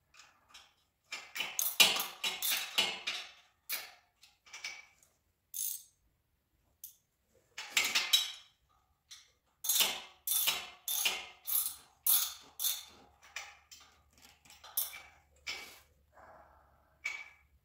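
Hand ratchet with a 9/16 socket clicking in quick bursts of back-strokes, with pauses between, as it runs a 3/8 lock nut onto a lower control arm bump stop bolt.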